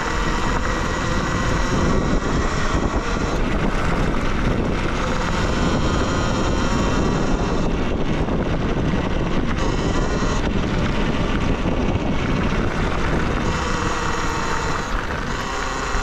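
Wind rush over the microphone and tyre noise while riding a Talaria Sting electric dirt bike, with a faint electric-motor whine that rises and falls with speed.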